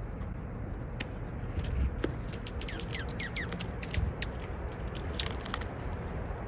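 Juncos giving rapid high chirps and sharp ticking calls, with a quick run of downward-sweeping "laser beam" notes about two to three seconds in.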